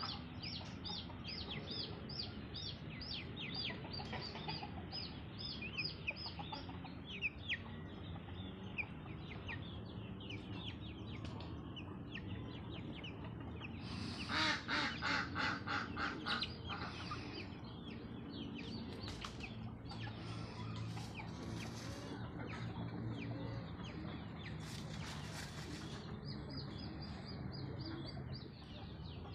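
Free-range chickens clucking. For the first several seconds young chicks peep in a quick run of short, high, falling chirps. About halfway through a grown bird gives a loud run of repeated calls.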